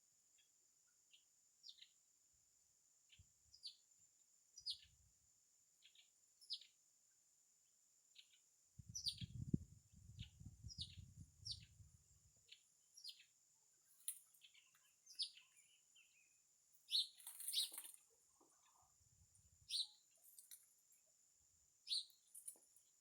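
Small songbirds chirping: short, downward-sliding high chirps repeated every second or so, over a faint steady high hiss. A low rumble comes in about nine seconds in and lasts a few seconds.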